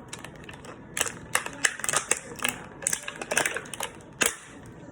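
Small hard plastic pieces clicking and tapping as they are handled and set down, in a loose irregular string of about seven clicks.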